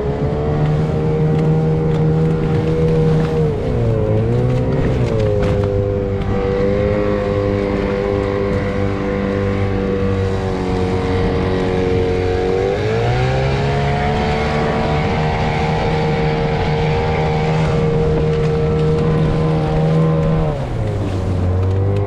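Small outboard motor pushing an inflatable boat along at cruising speed. The engine note dips briefly about four seconds in, climbs with more throttle around twelve seconds in, and drops again near the end, over steady wind and water noise.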